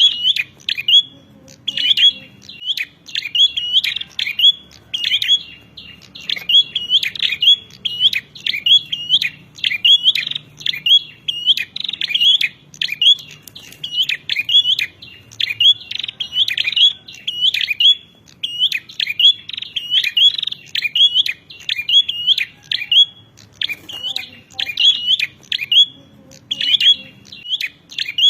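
Prinia (prenjak) giving its 'narung' fighting or challenge call: quick, sharp, high chirps repeated a few times a second in long runs with brief pauses.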